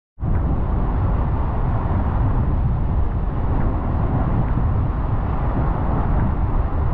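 Steady rush of a Highland burn cascading over rocks, with wind buffeting the microphone as a flickering low rumble.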